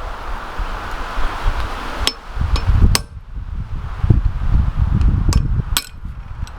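Blacksmith's hammer striking steel on an anvil: about six sharp, irregular blows, some briefly ringing, over a steady low rumble.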